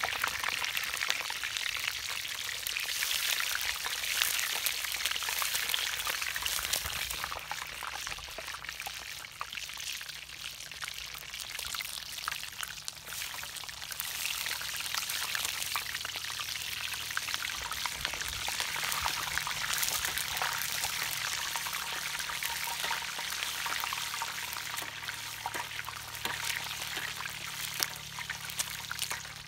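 Hot oil sizzling and crackling around a whole chicken deep-frying in a wok, with hot oil ladled and poured over the bird.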